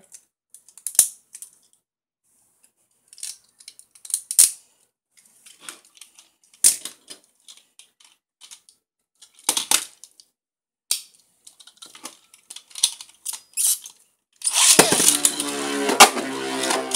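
Sparse sharp plastic clicks and snaps as Beyblade Burst parts are handled and fitted together. Near the end, Beyblade tops are launched into a clear plastic stadium and spin there, giving a sudden loud, continuous scraping whir with a steady hum.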